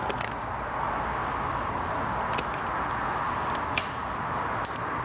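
Clear plastic decal transfer film being peeled back off a vinyl sticker, giving a few faint crackles, over a steady rushing background noise.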